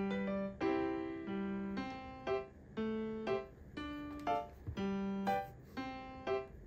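Background music: a keyboard melody of short notes that die away, about two a second.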